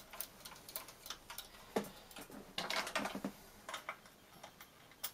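Scattered light clicks and taps of small screws and fingers handling the metal shield plate of an opened PlayStation 4. A quicker run of louder clicks comes about two and a half seconds in.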